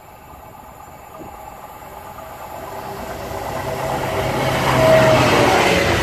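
Freightliner Class 66 diesel locomotive hauling a container train, approaching and passing: its engine drone and the rumble of wheels on the rails grow steadily louder, loudest about five seconds in as the locomotive goes by.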